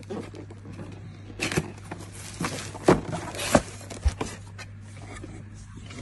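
Plastic wrapping and a cardboard box being handled, crinkling and rustling in a few short bursts near the middle, over a steady low hum.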